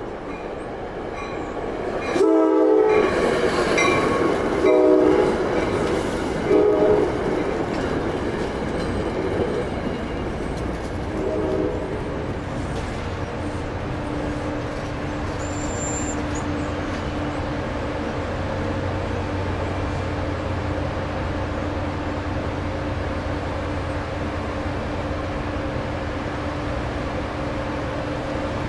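A train horn sounds several blasts, a long one about two seconds in followed by shorter ones. Then the train passes through the crossing with a steady rumble and rail clatter.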